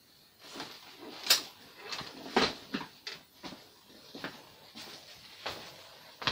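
Sound effects of an animated subscribe end card: a scattering of short, irregularly spaced clicks and swishes over a faint hiss.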